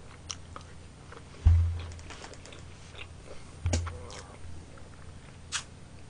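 Close-miked eating sounds: biting and chewing food, with small wet clicks and two dull low thumps, about a second and a half in and again near four seconds.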